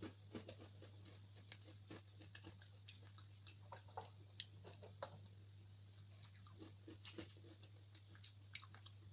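Faint, irregular crunching and chewing of a crisp chocolate-chip cookie, over a steady low hum.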